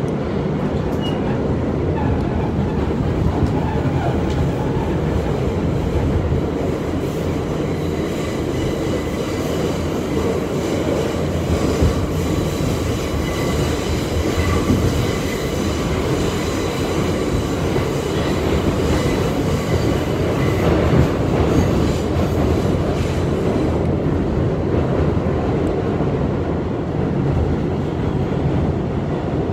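New York City subway car in motion, heard from inside: a steady rumble and rattle of the wheels on the track, with a faint high whine through the middle stretch.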